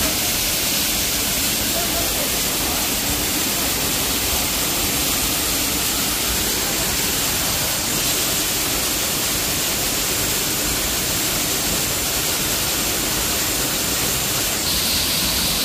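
Waterfall rushing: a steady, even hiss of falling water over rock, growing a little brighter near the end.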